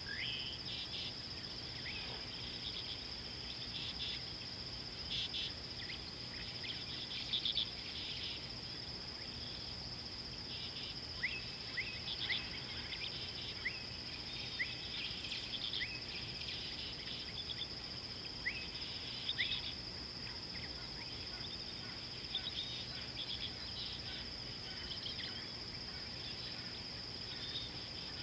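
Bush ambience: a steady high insect trill runs throughout, with short rising bird chirps scattered through it over a faint low hum.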